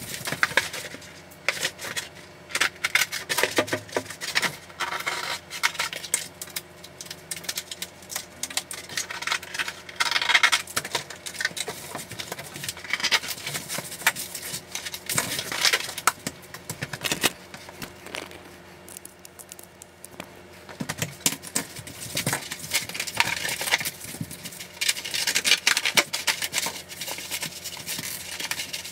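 Schluter Ditra plastic uncoupling membrane being handled and pressed flat over a plywood subfloor: a quick, irregular run of scrapes, crinkles and sharp clicks, with a faint steady hum underneath.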